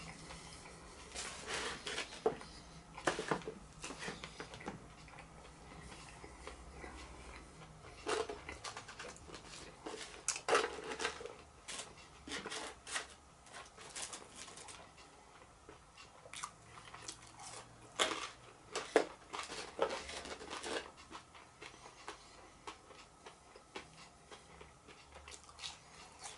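A person chewing and eating close to the microphone: irregular crunches, mouth clicks and smacks, coming in clusters with quieter gaps between.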